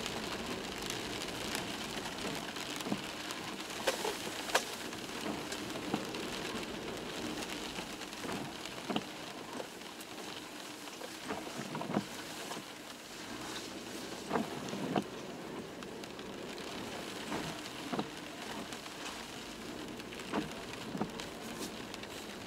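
Toyota Land Cruiser 120 on the move, heard from inside the cabin: a steady road and tyre noise with scattered sharp clicks and knocks at irregular intervals.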